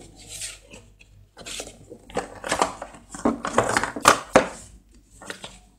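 Rustling, scraping and clicking of cardboard and paper packaging as the contents are taken out of a smartphone's retail box, loudest in the middle.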